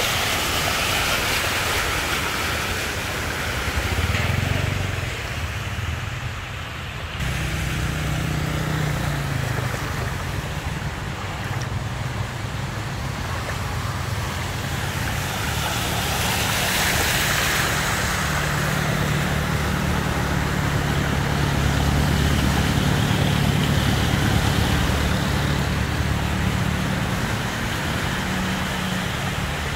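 Cars and a pickup truck driving through a flooded street, their tyres swishing and splashing through standing water over a steady engine hum. Swells of splashing as vehicles pass, near the start and again about halfway through.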